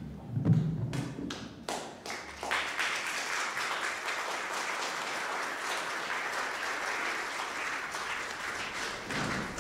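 Audience applauding: a few scattered claps at first, filling out into steady, dense applause about two and a half seconds in, which fades near the end.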